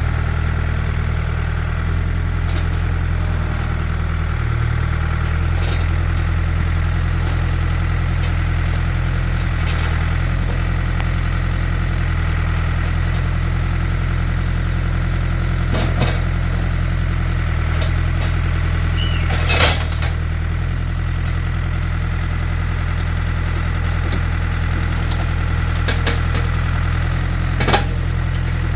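Case IH farm tractor's diesel engine running steadily, with a few sharp knocks over it, the loudest about two-thirds of the way through.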